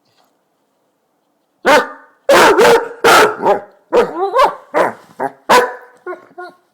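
Basset hound barking to wake its owner: after a short silence, a run of about eight loud barks and bays that bend up and down in pitch, with a few softer yelps near the end.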